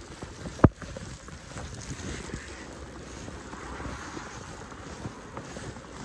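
Strong wind buffeting the microphone with a low rumble, over soft crunching footsteps in fresh snow. A single sharp thump sounds just over half a second in.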